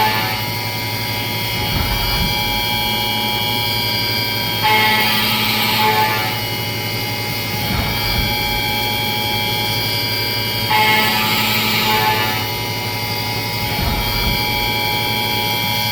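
CNC milling machine's spindle running with a steady whine while an end mill cuts billet aluminum. The cutting grows louder and hissier in passes that repeat about every six seconds, with a low thump between each pass.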